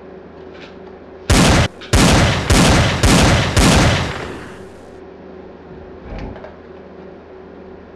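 Five revolver gunshots in quick succession, about half a second apart, the last one ringing out for about a second. About two seconds later comes a single shorter, softer bang, over a steady low room hum.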